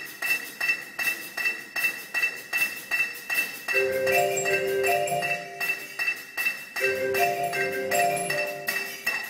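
Marching band music led by mallet percussion, marimba and glockenspiel, playing a steady pulsing pattern, with lower held chords joining about four seconds in and again about seven seconds in.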